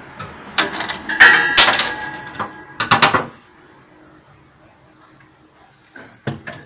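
Plastic thermostat and light housing of a Mabe refrigerator being pulled free from the compartment ceiling: about three seconds of plastic knocks, rattles and scraping with a brief squeak. A few light knocks follow near the end as it is set on the wire shelves.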